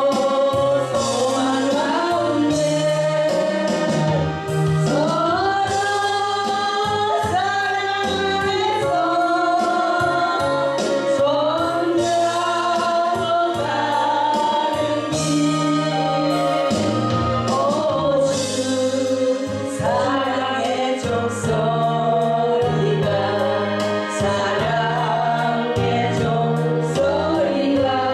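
Korean gospel praise song: voices singing a slow hymn-like melody over instrumental accompaniment, with a bass line moving note by note underneath.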